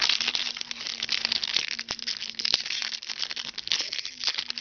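Foil wrapper of a Topps Chrome basketball card pack crinkling as it is handled and pulled open by hand: a dense, crackly rustle of many small clicks.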